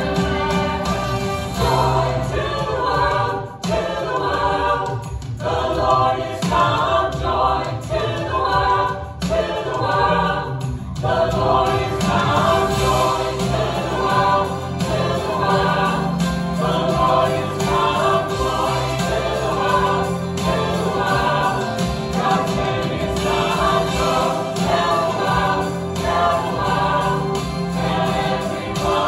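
Mixed church choir singing a Christmas gospel anthem in several parts, with instrumental accompaniment underneath.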